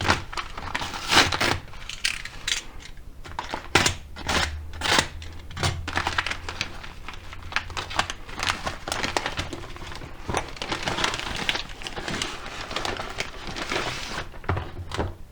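Packaging crinkling and rustling in a run of irregular sharp crackles as parcels of replacement phone displays are torn open by hand.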